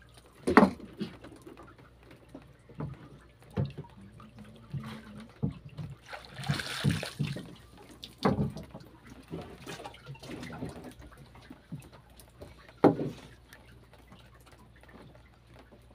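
Water splashing and sloshing with scattered knocks and thuds; two sharp knocks stand out, one about half a second in and one near the end, and a longer splash comes about six and a half seconds in.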